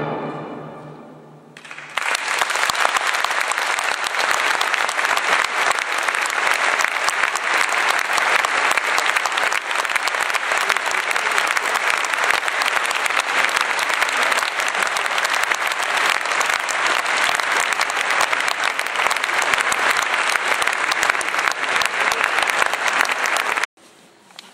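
An orchestra's last chord dies away in the hall's reverberation, then the audience applauds steadily for about twenty seconds; the applause cuts off suddenly near the end.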